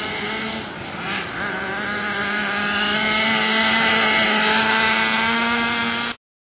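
Smartech 10342 nitro RC off-road car's small two-stroke glow engine running with a steady buzzing note, growing louder about two seconds in.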